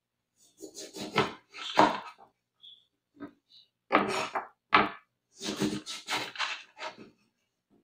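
Kitchen knife cutting through an orange on a wooden cutting board, trimming out the white pith from the middle. It makes a series of short, irregular slicing strokes and knocks of the blade on the board, coming in clusters.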